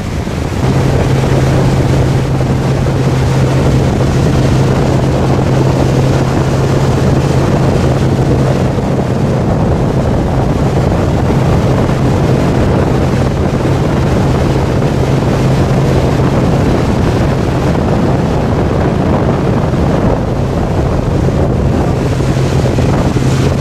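Tow boat's engine running steadily under way with a constant low drone, mixed with wind buffeting the microphone and the rush of the wake.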